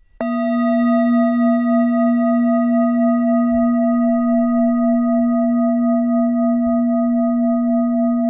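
A meditation bell struck once about a quarter second in, then ringing on as a low hum with several higher overtones, its loudness wavering slightly as it sustains.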